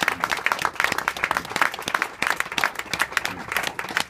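A crowd applauding: many hands clapping densely and irregularly.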